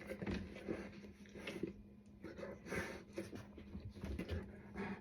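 Black Russian Terrier panting softly and shifting about, with a faint steady hum underneath.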